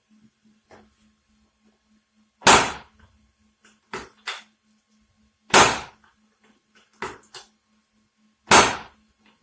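Three loud, sharp knocks about three seconds apart during a chiropractic adjustment, each dying away in under half a second, with a few softer clicks between them.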